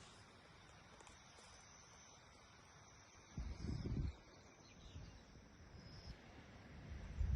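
Faint outdoor ambience with a short low rumble about three and a half seconds in.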